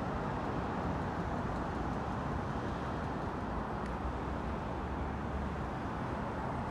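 Steady low rumble of city street traffic, with no train passing.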